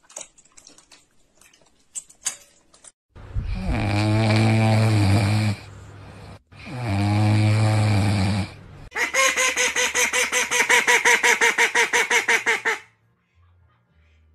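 A sleeping puppy snoring: two long, deep snores, then a rapid fluttering run of about six pulses a second that lasts some four seconds.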